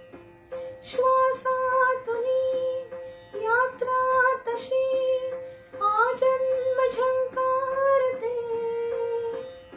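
A woman singing a Marathi song in long held notes that waver slightly, each phrase opening with an upward slide, over instrumental accompaniment.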